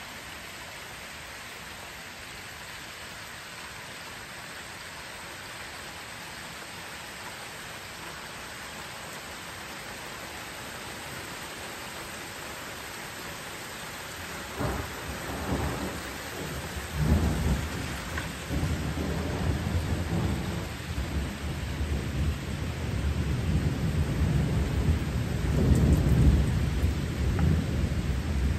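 Steady rain falling, then about halfway through a sudden crack of thunder followed by a long rolling rumble that grows louder toward the end.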